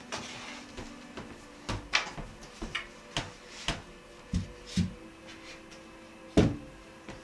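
A string of separate knocks and clacks as household things are handled and set in place, the loudest knock about six seconds in, over quiet background music.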